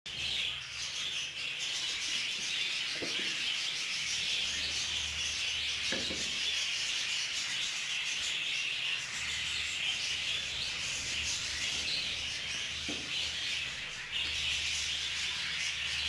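A group of budgerigar chicks cheeping together in a steady, continuous chorus, with a few soft knocks as they are handled.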